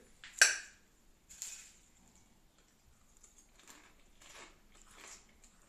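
A sharp tap of a fork on a plate of salad about half a second in, then faint crunchy chewing of a mouthful of mayonnaise salad topped with crisp potato chip sticks.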